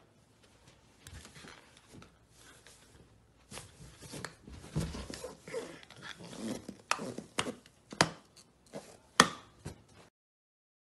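Puppy mouthing and biting a rubber balloon: a run of rubbery rubs and squeaks broken by sharp snaps, the loudest snap about nine seconds in.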